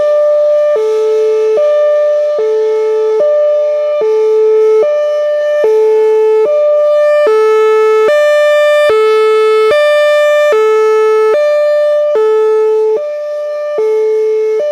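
Whelen Vortex R4 electronic outdoor warning siren sounding its Hi-Lo tone: two pitches alternating evenly, each held for just under a second. The tone grows brighter and harsher around the middle, then mellows again.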